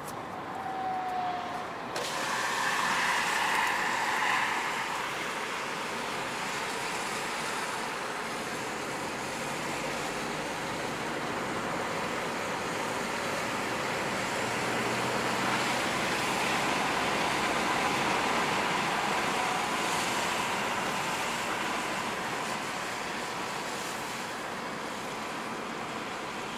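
Cabin noise of a Peugeot 208 1.2 PureTech 110 (three-cylinder turbo petrol) driving at road speed: a steady rush of tyre and wind noise.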